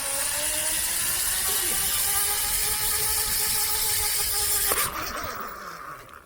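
Zip-line trolley pulleys running along the cable with a whine that rises in pitch as the rider speeds up and then holds steady, over a rushing hiss. A sharp knock comes about four and a half seconds in, after which the whine and hiss fade away.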